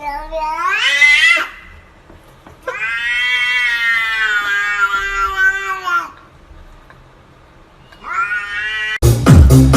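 A cat meowing in three long, drawn-out calls: the first rises in pitch and ends about a second and a half in, the second is held for about three seconds, and the third rises near the end. Loud electronic dance music cuts in over it just before the end.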